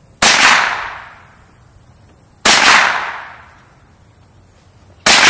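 Three gunshots about two and a half seconds apart, each a sharp crack followed by an echo that fades over about a second and a half.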